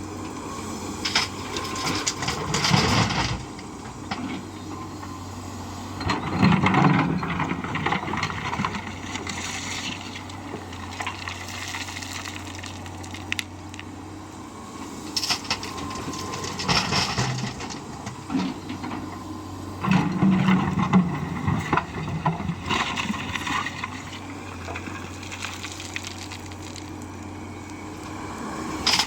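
A steady low engine hum, with several louder noisy surges over it, the loudest about three seconds in, around seven seconds and around twenty seconds.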